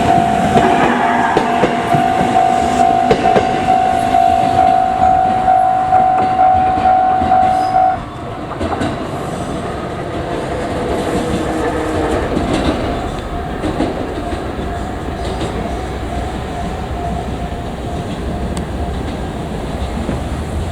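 Japanese level-crossing warning bell ringing its fast repeated single tone as a JR Kyushu 787 series express train runs over the rails, wheels clattering. The bell stops abruptly about eight seconds in, and a lower rumble of passing traffic goes on.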